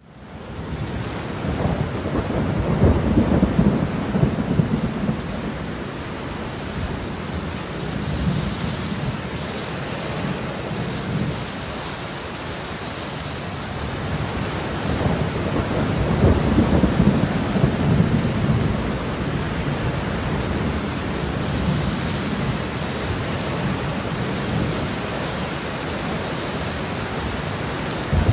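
Thunder rolling over steady rain during a thunderstorm, with long low rumbles that swell loudest about three seconds in and again around sixteen to eighteen seconds in.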